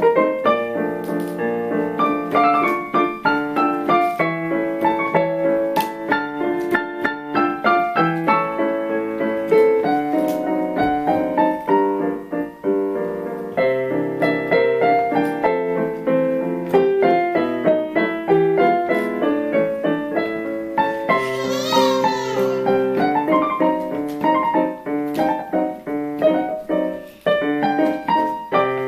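Four-hand piano duet played on a digital keyboard, a lilting waltz with a steady left-hand accompaniment under the melody. About three quarters of the way through, a baby's brief high, wavering squeal rises above the piano.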